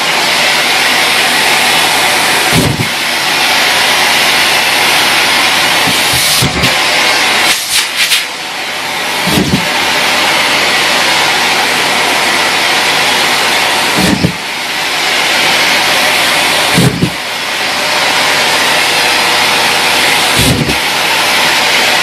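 Miele C3 canister vacuum cleaner running steadily with a loud rushing hiss as its floor head works over loose socks on a carpet. A handful of short low thumps come at irregular moments, and the sound dips briefly once in the middle.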